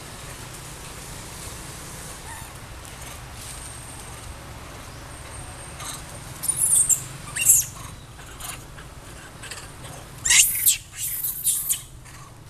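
Long-tailed macaques giving shrill, high-pitched squeals in two short flurries, one about six seconds in and a louder one near the end.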